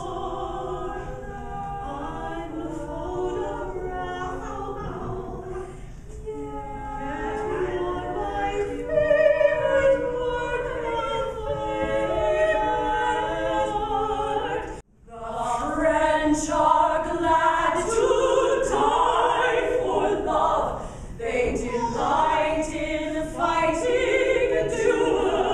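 Three women singing a cappella in close harmony, unaccompanied, with the sound cutting out for a split second about halfway through.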